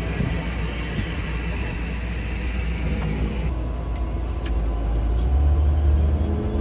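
Steady aircraft engine noise around a light plane: a constant low rumble with a hiss. About three and a half seconds in the hiss drops away and the sound becomes the muffled noise heard inside the plane's cabin, where the low rumble grows stronger near the end.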